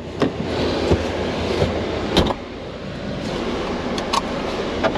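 Can-Am Defender Limited HD10 side-by-side running with a steady engine and driving noise. Several sharp knocks and clunks come through it, the loudest about two seconds in.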